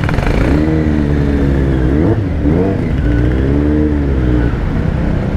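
Kawasaki Z900's inline-four engine, its aftermarket exhaust fitted with a dB killer, rolling at low speed with a steady low exhaust rumble. The revs rise and fall back twice.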